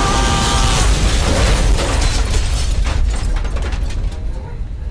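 Staged meteor-impact explosion: a loud, deep, rumbling blast with crackling, fading near the end.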